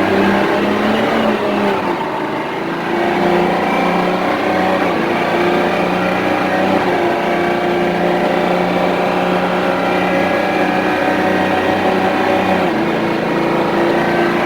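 Diesel engine of a large tri-axle truck pulling under full throttle as the truck accelerates slowly. The engine note dips and changes about two seconds in, then holds steady.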